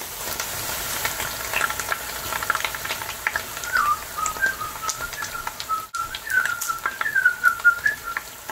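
Churros frying in a pan of hot oil, crackling and sizzling steadily. From a few seconds in, a person whistles a wavering tune over it.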